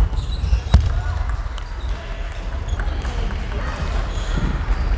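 Table tennis ball clicking off paddle and table, with one sharp hit about three-quarters of a second in and fainter clicks scattered after, over the murmur of voices and rumble of a sports hall.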